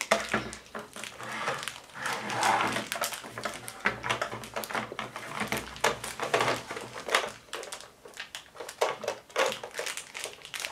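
Plastic toys being handled: a run of irregular clicks, knocks and rustling.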